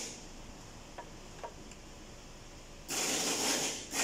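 Ratchet wrench clicking in short bursts as bolts on the car's front end are worked loose. There are two light ticks early, then a burst of about a second roughly three seconds in, and another starting near the end.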